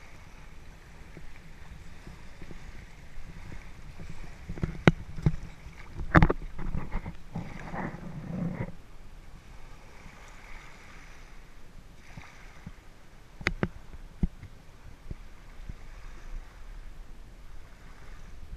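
Shallow seawater lapping and sloshing close to the microphone over a steady low rumble, with wind on the microphone. A cluster of splashes and sharp knocks comes about five to nine seconds in, and one more sharp knock comes near thirteen seconds.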